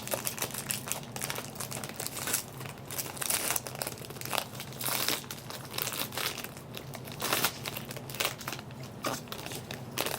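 A factory-sealed trading card box being opened: plastic wrapping crinkling and tearing in irregular crackly bursts.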